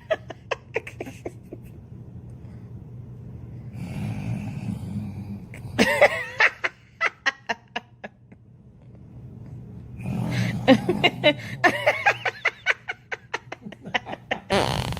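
A sleeping baby snoring, two long rasping breaths about six seconds apart. Each is followed by a quick burst of someone laughing.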